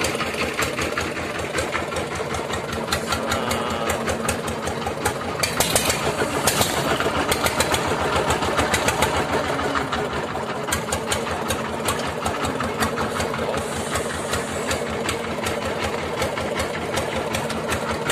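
Small boat's engine running steadily, its strokes heard as a fast, even beat.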